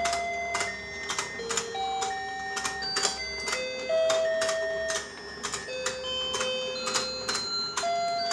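Battery-powered rotating fishing game toy running: its motor-driven pond clicks steadily, about three clicks a second, while a simple electronic tune plays in single beeping notes.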